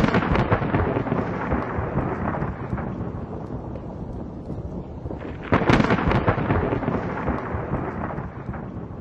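Thunder sound effect: a sharp crack followed by a long rolling rumble, then a second crack about five and a half seconds in that fades away.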